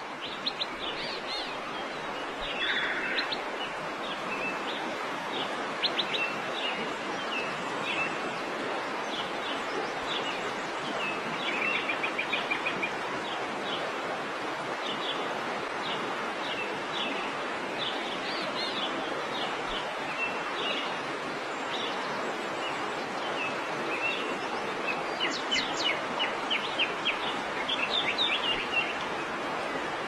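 Yellow-vented bulbuls calling: short sharp chirps scattered throughout, a quick chattering run about twelve seconds in and a denser burst of rapid notes near the end, over a steady background hiss.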